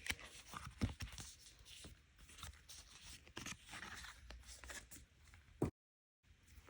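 Crinkling and tearing of a sealed plastic photocard pack being opened by hand, with irregular small clicks and taps as the cards are handled. A sharper tap comes near the end, and then the sound cuts out briefly.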